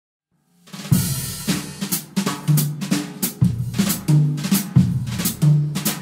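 Intro music with a drum-kit beat and held bass notes, starting about a second in after a moment of silence.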